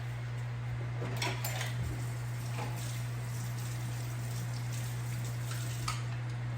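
Knife cutting lemons on a cutting board: a few light knocks and scrapes about a second in and again near the end, over a steady low hum.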